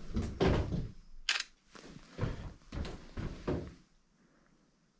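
Handling noise from a smartphone in a flip case: a sharp click about a second in and a few duller knocks, then quiet near the end.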